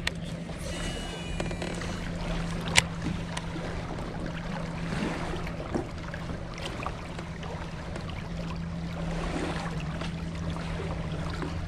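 Steady low hum of a bass boat's bow-mounted electric trolling motor, which cuts out for about a second partway through, over water and wind noise. There is a single sharp click a little under three seconds in.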